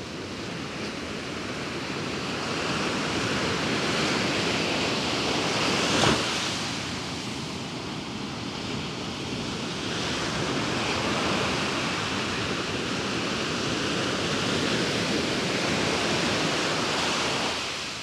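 Large ocean waves breaking on the shore: the surf swells up over a few seconds to a sharp crash about six seconds in, builds again to a long wash, and falls away near the end.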